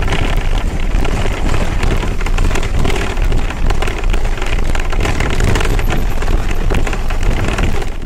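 Steady noise of street traffic with a strong low rumble and no single event standing out.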